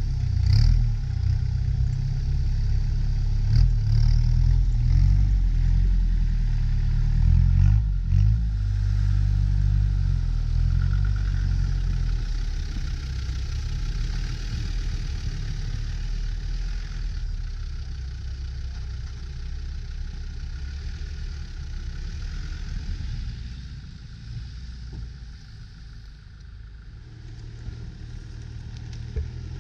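Off-road 4x4 engines working in deep snow: revving up and down hard for the first several seconds, then running more steadily. The sound fades somewhat a little over twenty seconds in and picks up again near the end.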